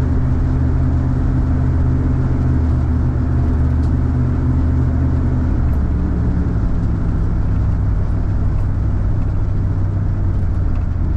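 Engine and road noise inside a moving vehicle: a steady engine drone over tyre hiss, dropping to a lower pitch a little past halfway.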